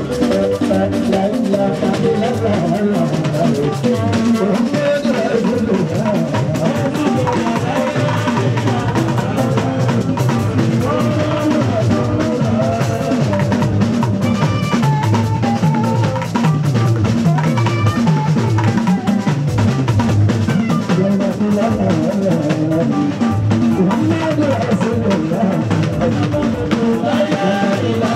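Live fuji band music, with drums and percussion to the fore over electric guitar and keyboard.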